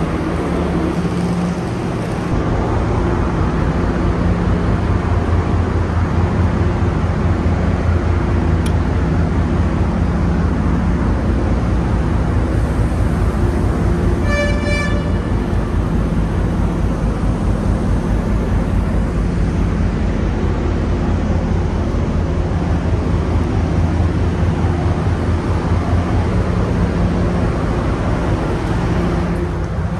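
Diesel engine of a standing passenger train running steadily at idle, a loud low hum with a fast pulse. A short, high horn-like toot sounds about halfway through.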